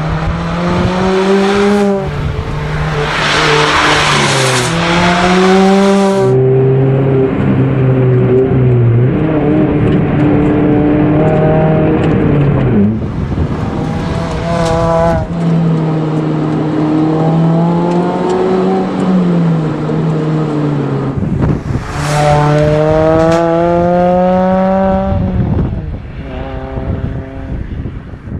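Mazda Roadster ND5RC's 1.5-litre four-cylinder engine heard through an RK Design axle-back exhaust. It revs up and drops back again and again, with several long rising runs, and holds steadier in between.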